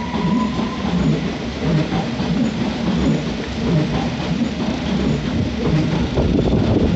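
London Underground S Stock train running along the platform: a steady heavy rumble with a rhythmic clatter of the wheels about twice a second, and a faint whine that rises in pitch during the first second.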